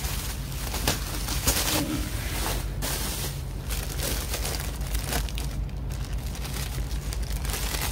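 Plastic packaging crinkling and rustling, with scattered light clicks, as a new laptop keyboard is unwrapped and handled by hand, over a steady low hum.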